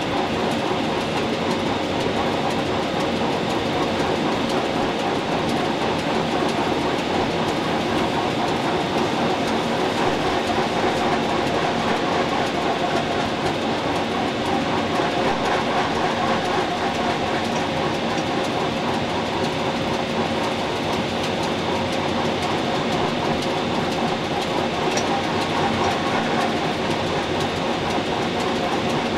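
Rhaetian Railway Ge 6/6 I 'Crocodile' electric locomotive running on narrow-gauge track: steady wheel-on-rail running noise with a steady hum underneath.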